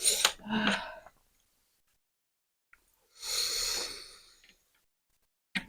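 A breathy hiss of air from a person's mouth, about a second long, a little past three seconds in, after a few brief mouth noises at the start; a short click comes near the end.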